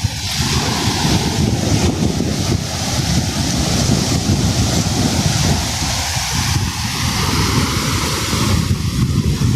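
Sea waves washing onto the shore as a steady rushing noise, with wind buffeting the microphone.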